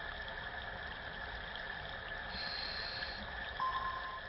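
Steady watery rushing ambience, with a brief high tone a little past halfway and a steady lower tone that comes in near the end.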